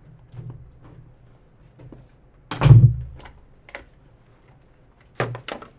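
Thumps and rustling from handling a box of trading cards and its packaging on a tabletop. There is one loud thump about two and a half seconds in and two smaller knocks near the end.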